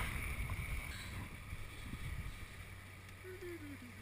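Low rushing noise of a river running at high flow, with wind rumbling on the microphone, slowly growing quieter; near the end a faint thin tone wavers down and back up.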